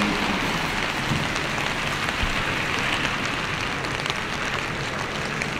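Steady rain falling, an even hiss with scattered drops ticking close by. A passing vehicle's engine fades out in the first moment.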